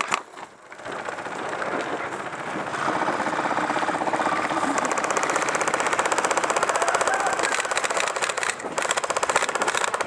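Airsoft electric guns firing long full-auto strings. The rapid, even mechanical rattle builds up about three seconds in and runs on almost without a break.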